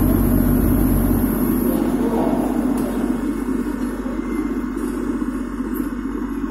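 Earthquake simulator running a shaking cycle: a steady low mechanical rumble. Its deepest part drops away about a second in, and the sound eases slightly after that.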